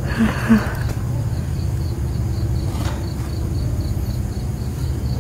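Night-time ambience in a phone recording: a steady low rumble with faint cricket chirping repeating about five times a second high above it.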